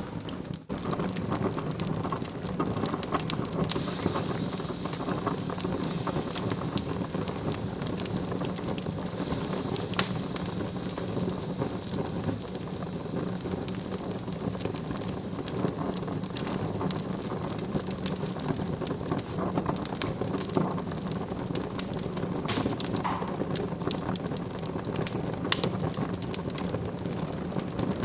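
Wood fire burning in a fireplace, crackling steadily with many small snaps and a couple of louder sharp pops, about ten seconds in and again near the end. A soft hiss rises from the fire through the first half.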